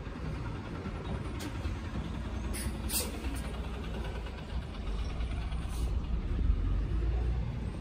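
Low, steady rumble of street traffic, growing louder toward the end, with a few short hisses about one and a half, three and six seconds in.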